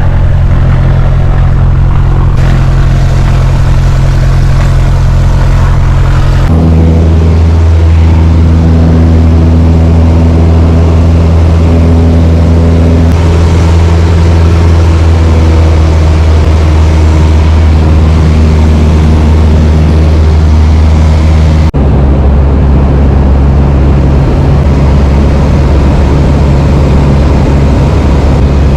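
Light propeller aircraft's piston engine droning loudly and steadily. The pitch of the drone shifts abruptly twice, about six seconds in and again near the end.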